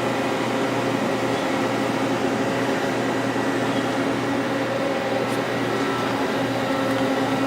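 Hardinge CNC lathe running under power: a steady machine hum made of several constant tones over a light hiss.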